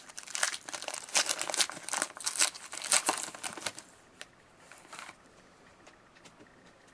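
Trading-card pack wrapper being torn open and crinkled by hand, a dense crackle that dies away about four seconds in, leaving a few faint taps.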